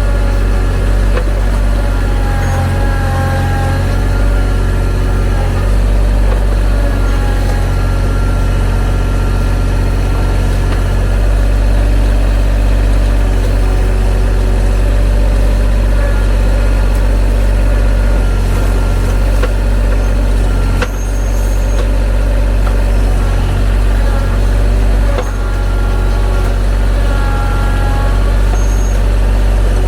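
TYM T313 sub-compact tractor's diesel engine running steadily at work, a continuous low hum with a few brief changes in load.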